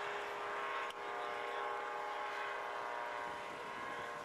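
Tandem Airbike ultralight aircraft's engine running steadily at constant speed, a high, even buzz with a brief dip about a second in.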